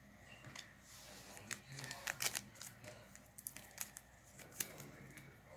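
Foil trading card booster pack being handled and torn open: irregular crinkling and crackling of the wrapper, thickest about two seconds in.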